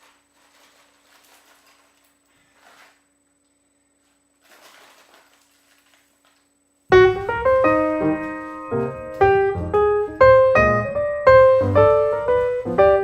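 A few faint, soft rustling sounds, then piano music begins suddenly about seven seconds in and plays on as a run of notes.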